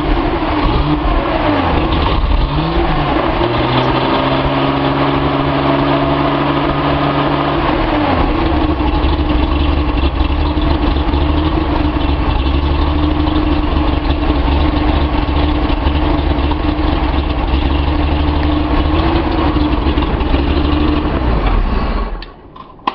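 Datsun 280Z inline-six engine running on a test stand, wired with its dual-coil distributor's two ignition coils in series, which the owner finds seems to make it run better than its usual chugging. The revs rise about three seconds in and hold higher for a few seconds, then drop back to a steady idle about eight seconds in, and the engine is shut off about a second before the end.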